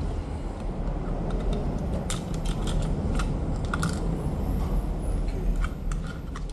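Scattered light clicks and taps of small tablet parts being fitted back in by hand, over a steady low background rumble.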